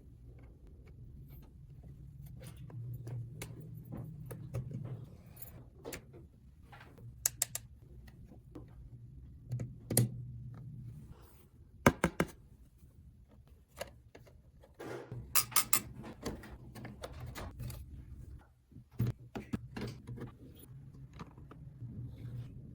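Small plastic toy pieces being handled: scattered light clicks and taps, with sharper knocks about 10 and 12 seconds in and a quick cluster of clicks around 15 to 16 seconds, over a low steady hum.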